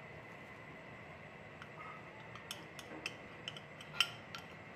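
Scattered light clinks and taps of a ceramic bowl and hands against a stainless steel mixing bowl as gram flour is tipped in and mixed by hand, the sharpest clink about four seconds in.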